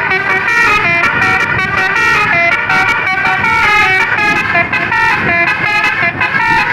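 Bus basuri telolet horn, a bank of air-horn trumpets playing a fast melody: several tones sound together and step to new notes every quarter to half second, without a break.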